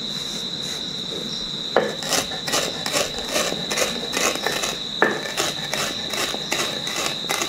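Roasted cumin and coriander seeds being ground to powder by hand, a rhythmic grinding and scraping of about three strokes a second that starts about two seconds in.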